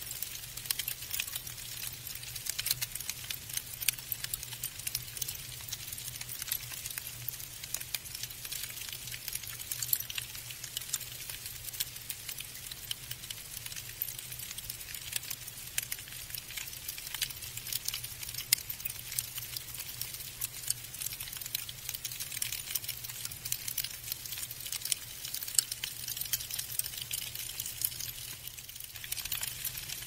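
Falling snow pattering: a dense, irregular stream of tiny ticks and crackles, over a low steady hum.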